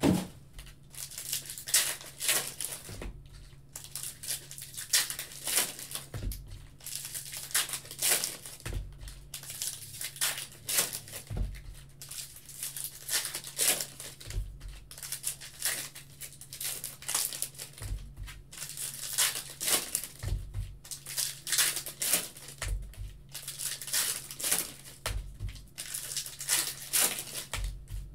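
Foil wrappers of 2021 Bowman Hobby baseball card packs being torn open and crinkled by hand, with cards flicked and shuffled. A dull thump comes every two to three seconds.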